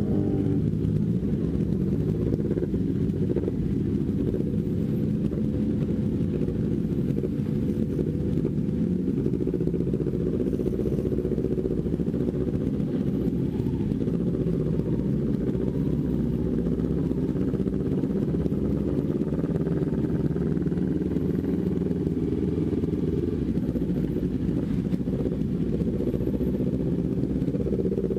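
Kawasaki Ninja sport bike's engine running steadily at low, rolling speed, heard muffled through a camera mounted on the bike.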